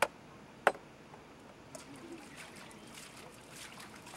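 Two sharp chopping strikes, at the start and just under a second in, as fish are cut up, followed by faint, irregular water trickling and small splashes as the fish are handled over a bucket.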